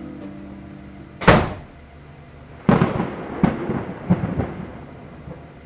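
Thunder: a sharp crack about a second in, then a spell of irregular rumbling rolls from about a second later that fades toward the end.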